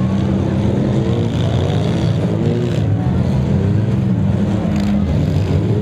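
Several six-cylinder demolition derby cars' engines running and revving together, a tangle of pitches rising and falling as the drivers accelerate and back off. A couple of faint knocks come through, about halfway and near the end.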